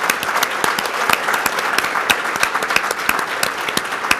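An audience applauding: many hands clapping together in a steady, dense patter.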